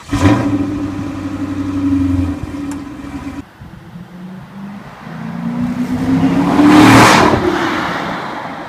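Dodge Charger R/T's 5.7-litre HEMI V8 with the mid muffler deleted, starting up loudly and idling. After a cut, the car accelerates past: the exhaust note rises and grows louder to a peak about seven seconds in, then drops in pitch as it goes by.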